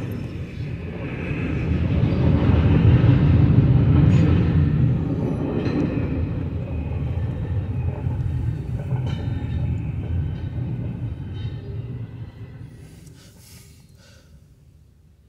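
Double-stack intermodal container train rolling past, a steady rumble and clatter of wheels on the rails. It fades away over the last several seconds as the end of the train goes by.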